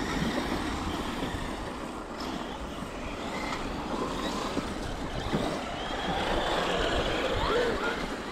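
Wind rumbling on the microphone over the steady noise of electric RC cars running on a dirt track.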